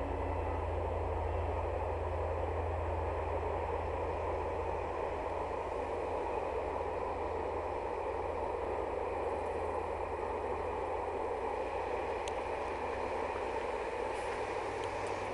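Steady rumble of a Corail passenger train crossing a high stone viaduct, heard from below, with a constant hiss over it.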